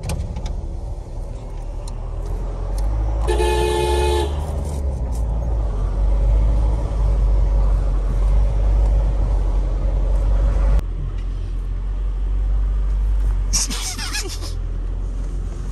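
A car horn sounds once for about a second, about three seconds in, over the low, steady running of a vehicle engine. The rumble drops suddenly about eleven seconds in, and a second short, shrill sound comes near the end.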